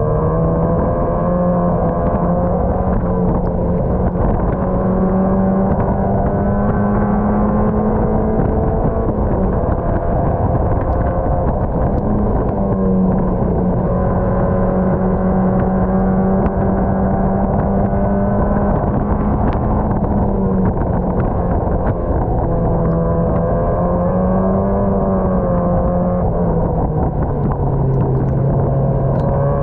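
Mazda MX-5 race car's four-cylinder engine running hard on track, heard from inside the stripped cabin. Its note holds steady for stretches, then drops and climbs again several times.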